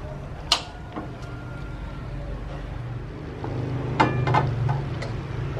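A metal ladle clinking against a stainless steel pot twice, then a few seconds later a wok set down on a gas stove's pan support with a loud metal clank, a short ring and a few quick rattles, over a steady low hum.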